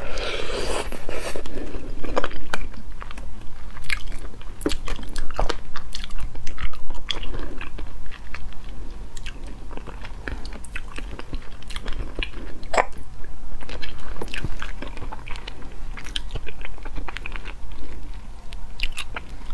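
Close-miked eating of a red sugar apple (custard apple): a soft bite into the creamy flesh, then chewing with many wet mouth clicks and smacks. Near the end, seeds are worked out and spat into the hand.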